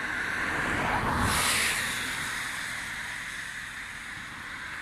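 An outdoor rush of noise that swells about a second in and fades again over the next two seconds.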